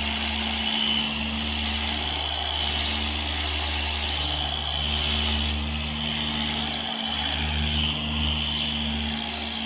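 Power sander with 80-grit paper running steadily over steel body panels of a 1972 Chevy Nova: a constant motor hum with a gritty hiss, dipping briefly about seven seconds in.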